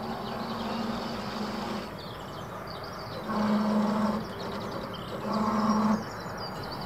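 Remote-controlled carp bait boat's electric motors running steadily as it comes in, cutting out about two seconds in. Two short bursts of about a second each follow, at the same pitch.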